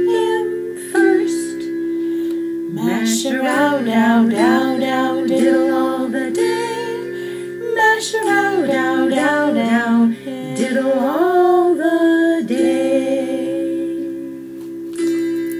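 A woman singing a picture book's text as a song over a steady instrumental accompaniment.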